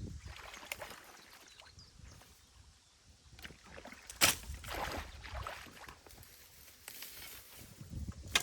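Irregular splashing and sloshing of shallow stream water, broken by a few sharp knocks, the loudest about four seconds in.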